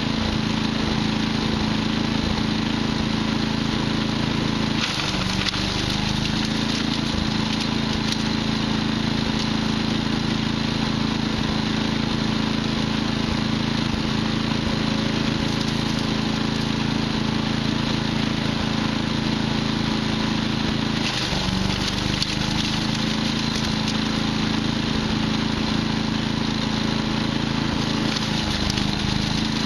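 Patriot wood chipper's engine running steadily while chipping wood, its pitch dipping briefly about five seconds in and again about twenty-one seconds in as it takes load.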